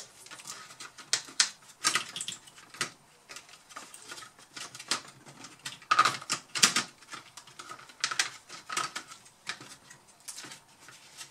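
Irregular clicks and taps of a laptop motherboard being handled and pressed down into the ASUS K555L's plastic base, loudest about six to seven seconds in.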